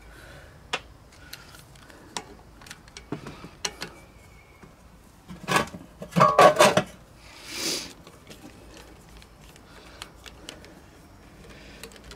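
Light metal clicks and clinks of hands working on a Briggs & Stratton engine's recoil starter clutch and its screen, with a louder clatter of metal parts or tools about five to seven seconds in.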